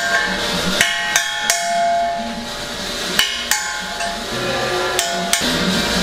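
Hammer striking metal: sharp blows in quick pairs and threes about a third of a second apart, each leaving a short metallic ring.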